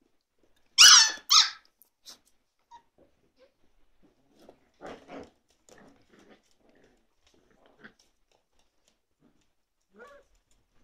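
Cocker Spaniel puppies at play: two loud, high-pitched yelps in quick succession about a second in, then quieter scuffling and small growly sounds, and a short little call near the end.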